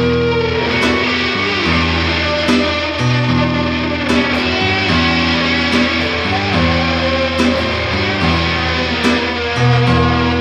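Stratocaster-style electric guitar playing a melodic lead solo over held grand piano chords and bass notes, an instrumental break between sung lines.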